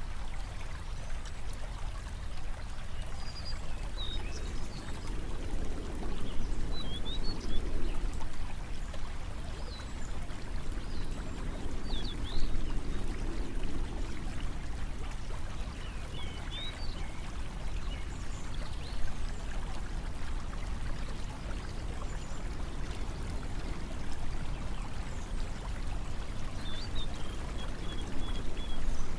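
Water flowing steadily with slow swells, while small birds chirp now and then in short high calls.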